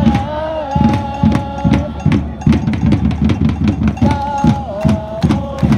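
Football supporters' chant: a crowd sings a held, stepping melody over a steady, fast drum beat.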